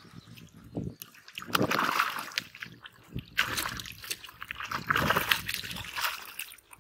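Pond water splashing and sloshing in several irregular surges, beginning about a second and a half in.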